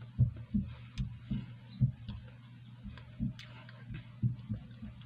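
Close-up chewing of a mouthful of shawarma with the mouth closed: soft low thuds about two a second, with a few faint wet clicks, over a steady low hum.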